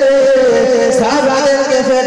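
A man's voice singing a slow melodic line with long held notes, in the chanted style of a sermon delivered in song.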